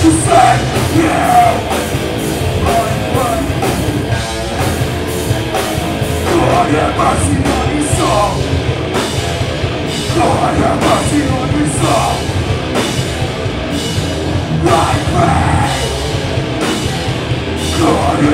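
Live rock band playing loud heavy rock: electric guitar over a drum kit, with cymbal hits recurring about twice a second.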